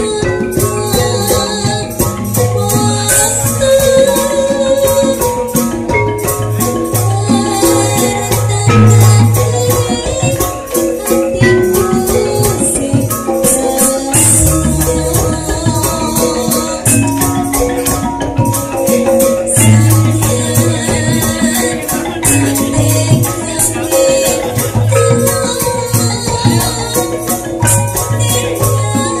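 Javanese gamelan ensemble playing loudly, its thick-keyed saron metallophones struck hard with mallets over bonang kettle gongs and kendang drum strokes. A fast, even jingling percussion runs throughout.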